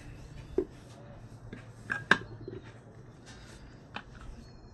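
Metal parts and hand tools being handled: a few sharp clicks and knocks, the loudest about two seconds in, over a low steady hum.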